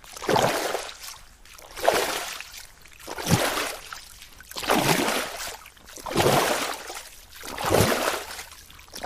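Water sloshing in repeated surges, six times, about one every one and a half seconds, each swelling with a low thud and then fading away.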